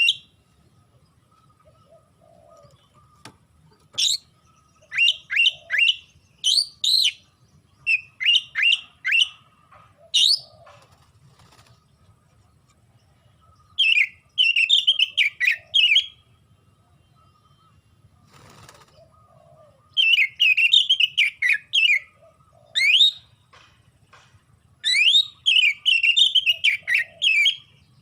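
Oriental magpie-robin (kacer) singing loudly in full song: bursts of quick, down-slurred whistled notes repeated in phrases of a second or two, with short pauses between the phrases.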